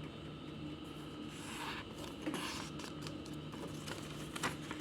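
A sheet of printed paper being handled and folded in half: soft rustles and a few light crinkling clicks over a faint steady hum.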